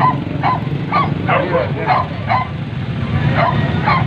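Hunting dogs barking and yelping over and over, roughly a bark every half second, with a short pause a little past halfway. Motorbike engines run underneath.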